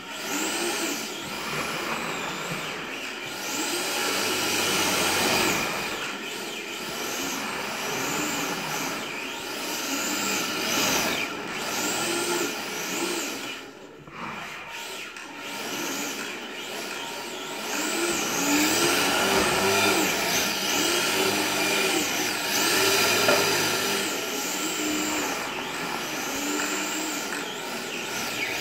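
Electric motor of an HPI Sprint 2 RC drift car whining up and down in quick throttle bursts, with tyre scrub on a concrete floor. The sound fades briefly about halfway through as the car moves off, then comes back louder.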